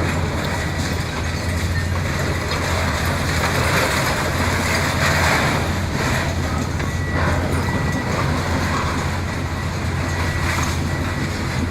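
Heavy demolition machinery with a diesel engine running steadily under load, with a stretch of louder rough grinding noise around the middle.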